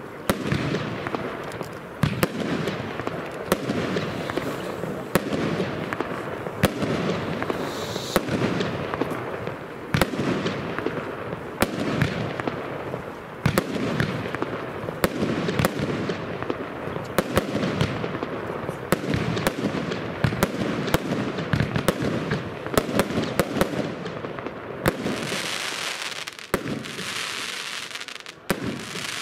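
Lesli Massive Escape compound firework battery firing shot after shot: shells launching and bursting, with sharp bangs roughly every half second to a second. Near the end comes a few seconds of dense high hiss.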